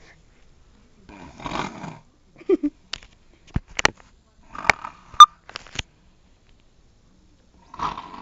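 A person snoring: one snore about a second and a half in and another near the end. Between them comes a run of sharp clicks or knocks, the loudest about five seconds in.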